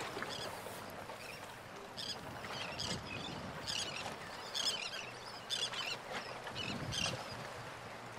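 Birds calling in many short, repeated calls over a steady background of wind noise.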